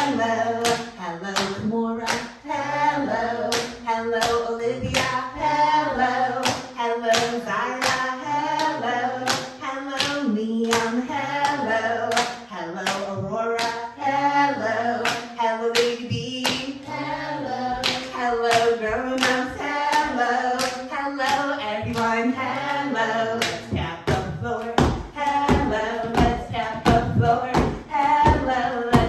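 A group of adults clapping hands in a steady beat, about two claps a second, along with singing and music with a repeating bass line. The bass line drops out about five seconds before the end while the beat goes on.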